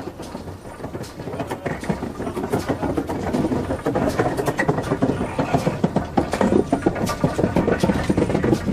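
Heritage railway train in motion, a rumble overlaid with many irregular clicks and knocks from the wheels and the rattling carriage, with faint voices in the background.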